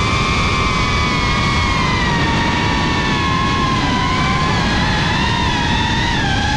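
FPV quadcopter's motors and propellers whining, heard from the onboard camera over a steady rush of air noise. The pitch wavers and sags slowly as the throttle eases.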